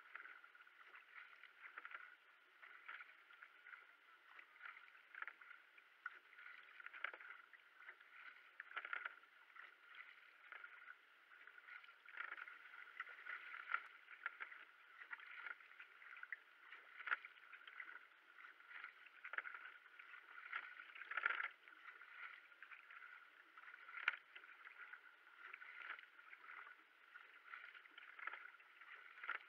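Racing kayak being paddled: faint paddle strokes splashing into the water about once a second, with water washing along the hull.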